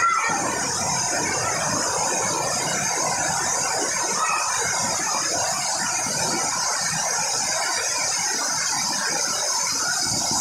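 Heavy rain pouring down as a steady, even hiss.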